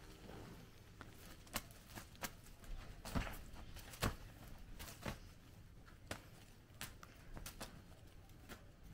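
Faint scattered rustles and light thumps of a cat leaping and pouncing on a padded duvet after a feather wand toy, with a few sharper knocks in the first half.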